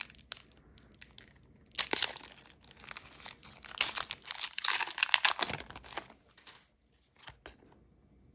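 Foil Pokémon TCG booster pack wrapper being crinkled and torn open by hand, in two bouts of rustling: one about two seconds in, a longer one from about four to five and a half seconds in.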